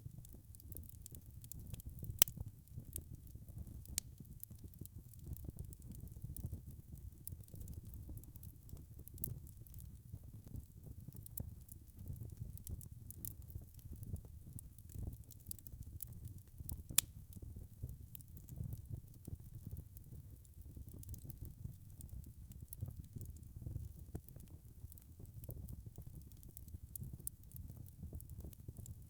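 Burning logs crackling in a fireplace: a low, steady rumble of flames under a constant scatter of small snaps and ticks. Two sharper pops stand out, about two seconds in and about seventeen seconds in.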